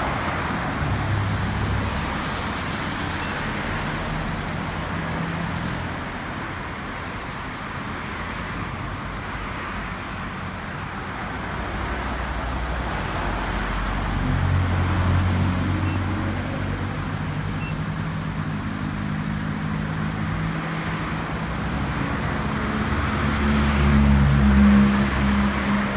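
A motor vehicle's engine running, its low hum shifting in pitch and swelling louder near the end, over a steady hiss of road or traffic noise.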